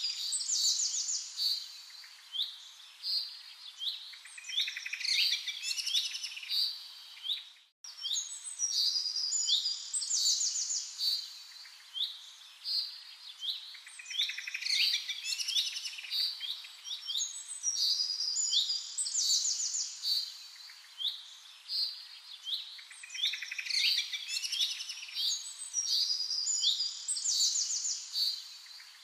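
Birds chirping and singing continuously, many short high calls and trills overlapping, with a brief cut to silence about eight seconds in.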